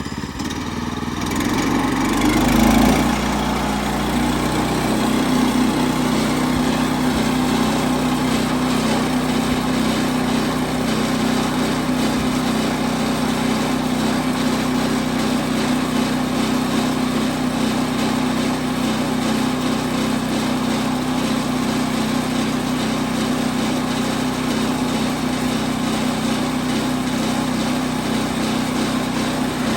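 Woodland Mills HM122 bandsaw mill's small engine revving up over the first few seconds, then running steadily at speed and driving the band blade. This is a test run to check that the blade stays tracking on its wheels after a band-wheel adjustment.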